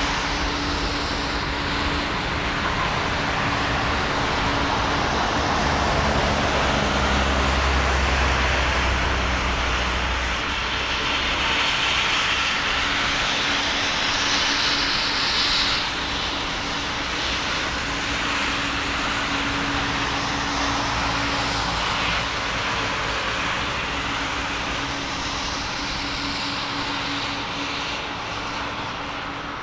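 Jet engines of a four-engined Boeing 747-400 on final approach: a steady rushing roar with a low steady hum under it. The hiss swells about halfway through and eases slightly near the end.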